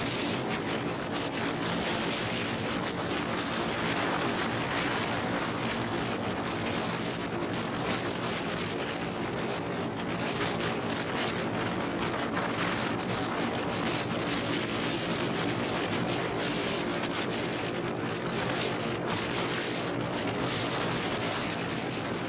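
Motorcycle engine running steadily at cruising speed, mixed with rushing wind noise on the microphone while riding.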